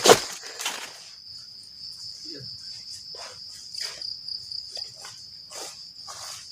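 Crickets chirring in one unbroken high-pitched drone, with loud rustling steps in the first second and fainter scattered rustles after.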